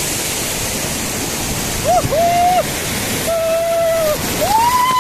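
Rushing river water, a steady hiss, with three long, held, high-pitched calls from a voice about two, three and a half, and four and a half seconds in.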